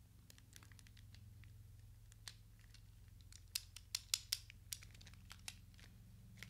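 Scattered light clicks and small handling noises from a Shimano BR-R451 rim-brake caliper being turned over and worked in the hands, most of them between about three and a half and five seconds in. A steady low hum sits underneath.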